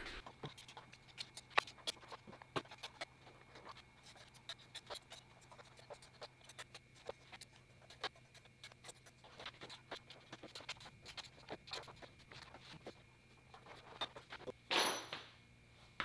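Faint, irregular metallic clicks and scrapes of a hand wrench working the bolts of a riding mower's engine cover, over a steady low hum, with a louder scrape near the end.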